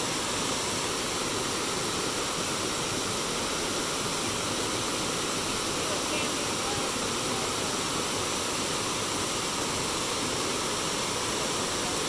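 River water flowing in a steady, even rush.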